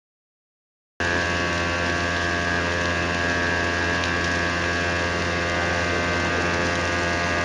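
Portable fire pump engine running at a constant speed, a steady mechanical drone feeding the fire hose. It starts suddenly about a second in.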